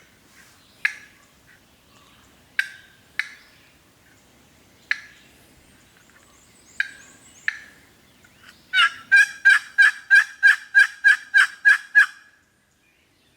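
Turkey clucks, single sharp notes a second or two apart, then a loud run of about a dozen yelps at roughly three a second that stops abruptly.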